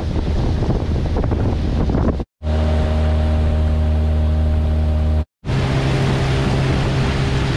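Small boat's outboard motor running steadily at cruising speed, with wind and water rushing past. The sound breaks off abruptly twice and resumes, and the engine's pitch is different in each of the three stretches.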